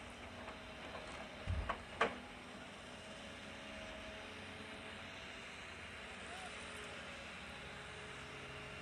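Distant excavator-type log loaders at work, their diesel engines and hydraulics running as a steady drone with a few faint held tones. About a second and a half in come a few sharp knocks, the loudest moment.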